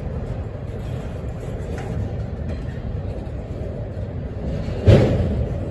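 Freight train cars rolling past close by: a steady low rumble of wheels on rail, with one loud bang about five seconds in.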